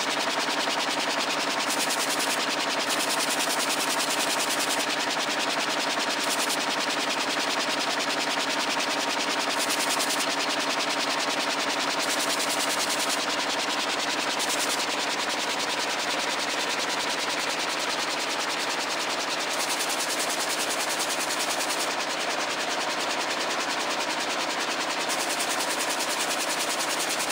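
Air jet weaving looms running at full speed: a loud, steady, very rapid mechanical clatter of repeated strokes.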